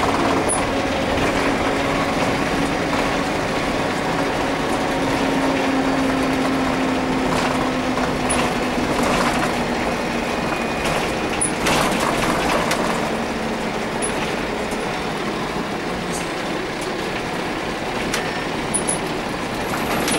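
Karosa C934 bus's Renault MIHR diesel engine running steadily as the bus drives, heard from inside the passenger cabin. The engine note drops slightly about seven seconds in, and a few short knocks and rattles come around the middle.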